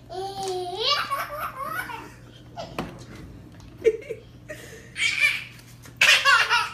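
A baby laughing in repeated bursts of giggles and belly laughs, with a short knock near the middle.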